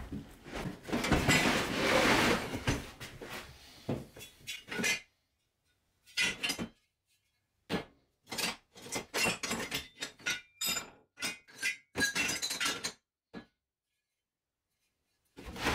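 Steel profile-tube offcuts clanking and clinking against each other as they are rummaged through in a plastic bin. A dense rattling clatter for the first few seconds gives way to separate metal clanks, with dead-silent gaps between them.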